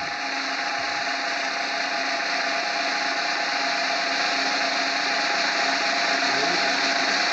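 Steady whirring of a small electric motor with a held hum, growing slowly louder.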